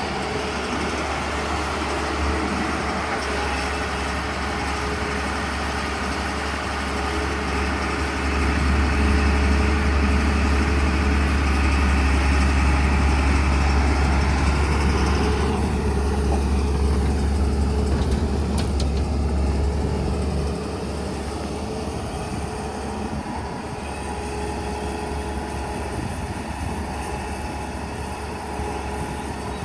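Diesel engine of a JCB 3DX backhoe loader working while it loads mud into a tipper truck: a steady low drone that grows louder about eight seconds in and drops back about twenty seconds in.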